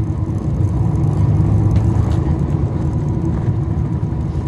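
Cummins ISL9 diesel engine of a 2011 NABI 40-foot transit bus running, heard from on board the bus as a steady deep drone with a faint steady whine above it.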